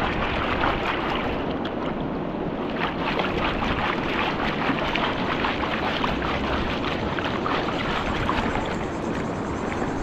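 Water sloshing and splashing steadily as a gold pan is swirled and dipped in the river to wash down the gravel, which is heavy with hematite.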